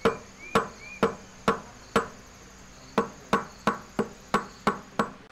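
Hand hammer striking silver wire on a steel stake in sharp metallic blows with a short ring: about two strikes a second at first, then after a brief pause a quicker run of about three a second.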